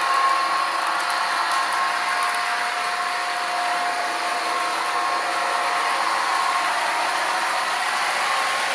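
HO-scale F40PH-2D model locomotive's ESU LokSound decoder playing its diesel prime-mover sound through the model's small speaker, running steadily with a high steady hum, as the model train rolls along the track.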